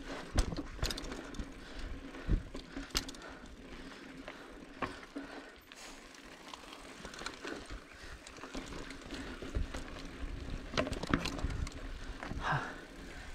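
Mountain bike ridden over a rough trail: rattling with irregular sharp clicks and knocks over a low rumble.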